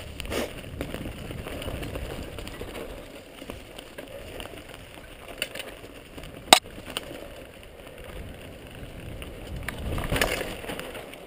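Mountain bike riding fast downhill on a dirt trail covered in dry leaves: tyres rolling over leaf litter and the bike rattling, with one sharp knock about six and a half seconds in.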